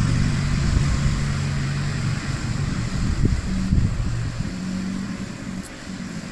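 Zero-turn riding mower's engine running steadily as it drives across the lawn, growing fainter near the end as it moves away.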